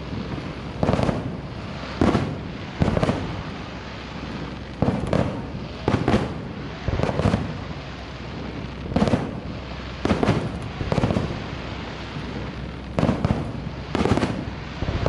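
Aerial fireworks going off: a sharp bang about every second, some coming in quick pairs, with short pauses between groups, each bang trailing off in a brief echo.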